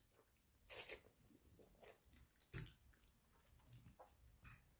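A person eating noodles: mostly near silence, broken by a few short, faint chewing and biting noises, the clearest about three-quarters of a second in and again about two and a half seconds in.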